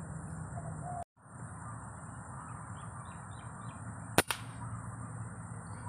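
A single sharp crack of a scoped air rifle firing about four seconds in, with a short tail after it. Faint bird chirps come just before the shot over a steady outdoor hiss.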